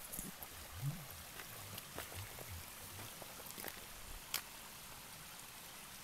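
Faint, steady trickle of a small mountain spring running over the stones of the trail, with a few scattered sharp clicks.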